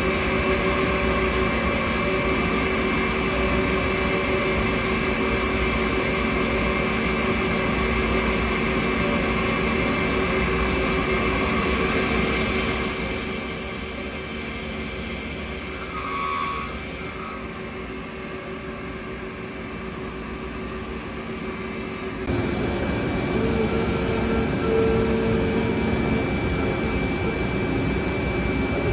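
Okuma Genos L300M CNC lathe running under power: a steady machine hum with several held tones. A high whine comes in about ten seconds in and lasts some seven seconds; then the sound drops and, a few seconds later, changes abruptly to a slightly different hum.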